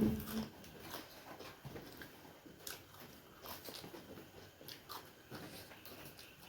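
Faint chewing of momo dumplings, close to the microphone, with scattered small wet mouth clicks.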